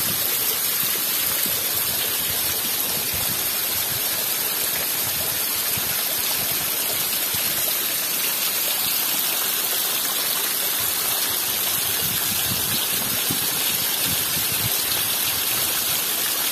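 Heavy rain falling steadily, with rainwater pouring off the roof tiles in a constant stream.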